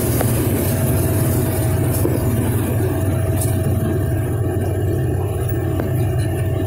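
Combine harvester running steadily while harvesting corn, heard from inside the cab: a constant low engine drone with a steady higher tone above it.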